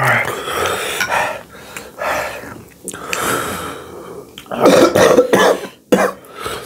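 Men coughing and clearing their throats in a string of rough bursts after eating very spicy food; the loudest coughing comes toward the end.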